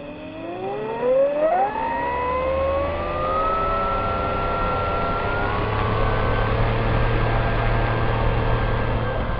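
Radio-controlled model plane's electric motor and propeller whining up to speed: the pitch rises steadily for about four seconds, then holds steady at high throttle.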